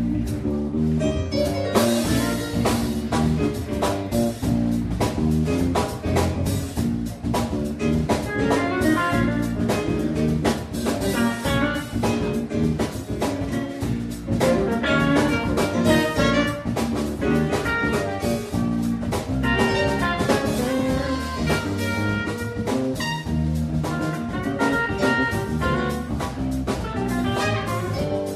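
Live band playing an up-tempo funk-jazz tune: electric guitar, bass guitar and drum kit, with a trumpet joining in on lead.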